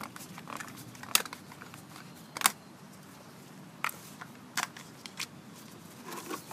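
Plastic screw cap being twisted off a plastic jug of motor oil: a few sharp plastic clicks and crackles, the two loudest in the first few seconds.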